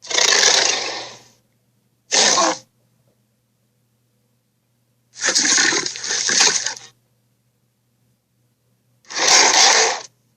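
Sharptooth, the animated film tyrannosaur, giving four separate harsh, raspy calls with silence between them. The third is the longest and swells twice, and the second is short.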